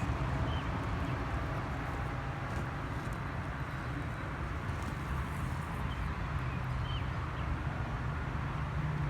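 Steady low hum of an idling car engine, with a few faint high chirps here and there.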